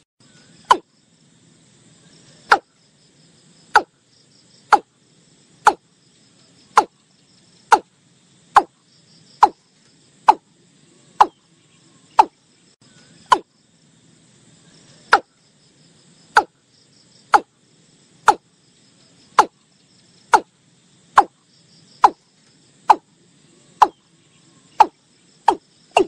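Watercock calling: a steady series of hollow, percussive notes, each falling steeply in pitch, about one a second. Faint insects chirr in the background.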